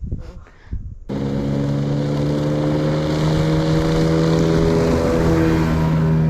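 A motorboat's engine running loud and steady close by, its drone and water noise coming in suddenly about a second in, typical of another boat speeding past.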